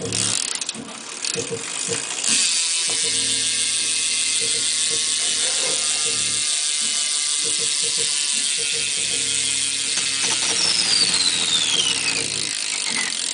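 Shadow Raptor rear hub with a 9-tooth driver on a BMX bike, freewheeling as the back wheel spins, giving a loud, fast ratcheting buzz. Near the end its pitch falls steadily as the wheel slows.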